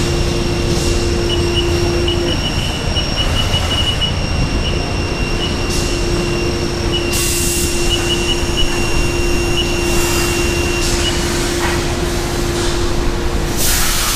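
Haas five-axis CNC machining center running a cut with flood coolant: a steady machine drone with a held whine that drops out about two seconds in and returns a few seconds later, and several short bursts of hissing coolant spray.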